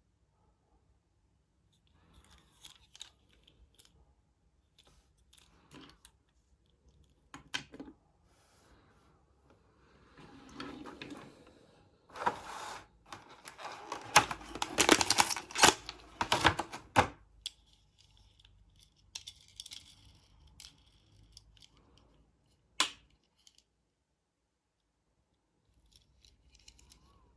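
Hot Wheels 5-pack packaging being torn open by hand: cardboard and plastic blister tearing and crinkling, loudest in a run of several seconds midway, with scattered clicks and handling noises and one sharp click near the end.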